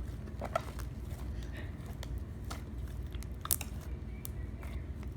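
Slime being kneaded by hand with coloured clay worked into it, giving irregular short wet clicks and pops, the sharpest about three and a half seconds in, over a low steady hum.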